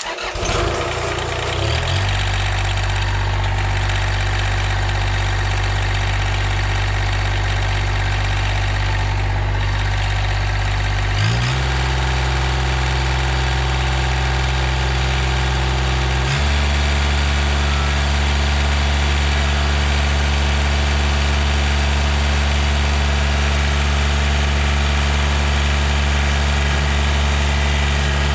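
Kubota compact tractor's diesel engine starting, then settling into a steady idle. The engine speed changes in steps about 11 and 16 seconds in, then holds steady.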